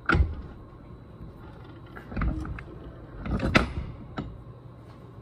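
Handling knocks of a steel maul head against the workbench and vise: a sharp knock at the start, a scuffing clunk about two seconds in, and a louder clatter with a sharp click about three and a half seconds in.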